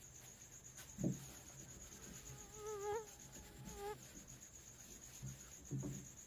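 Marker pen squeaking on a whiteboard during writing: two short, wavering squeaks in the middle. A brief low thump comes about a second in, and a faint steady high whine runs underneath.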